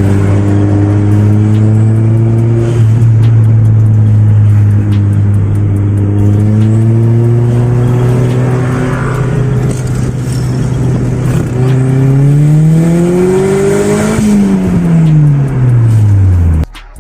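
Toyota Corolla AE92's 4E-FTE turbocharged four-cylinder engine running steadily, then revved once: the pitch climbs for about two seconds and falls back before the sound cuts off near the end.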